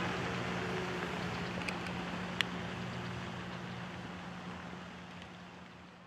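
The last of the Whelen WPS-2906 electronic siren's falling wail dies out in the first second, leaving a steady outdoor hiss with a low hum that fades away, broken by two faint clicks about two seconds in.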